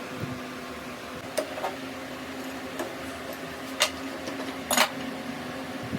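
Workshop machine humming steadily, with several sharp metallic clinks and knocks of metal parts or tools being handled, the loudest two near the end.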